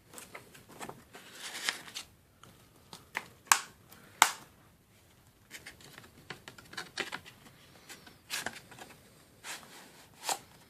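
Blu-ray case and packaging being handled: irregular plastic clicks, taps and rustling, with two sharp, louder clicks about three and a half and four seconds in.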